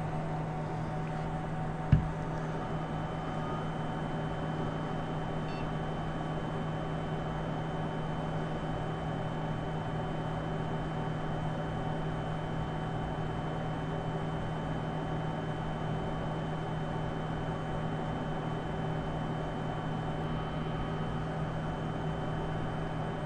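IGT AVP slot machine running as it boots after being powered up: a steady electrical hum with a few faint steady tones above it. A single sharp click about two seconds in.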